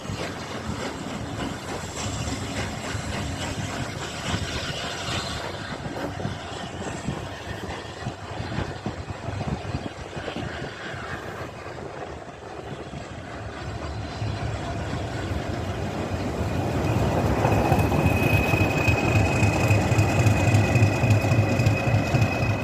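Train hauled by the steam locomotive 60163 Tornado running along the track. It gets steadily louder about two-thirds of the way in, and stays loud with a fast low rattle of the wheels and a thin, steady high squeal near the end.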